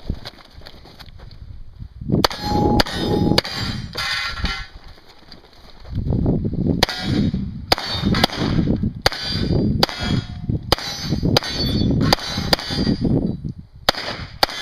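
Mini Uzi submachine gun firing a string of short bursts and single shots, starting about two seconds in and stopping near the end, with steel targets clanging and ringing under the hits.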